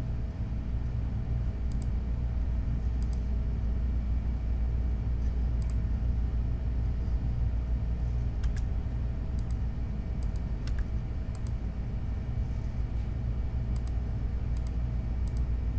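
Computer mouse clicking about a dozen times at irregular intervals, placing anchor points with Photoshop's magnetic lasso tool, over a steady low hum.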